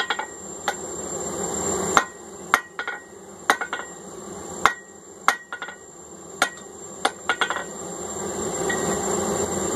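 Blacksmith's hammer striking hot steel on an anvil: a dozen or so irregular blows, each with a short metallic ring, as the bar is drawn out for the punch end. A steady rushing noise rises and falls underneath.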